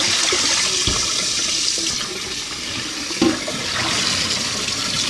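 Water running steadily from a tap into a sink, with a couple of small knocks.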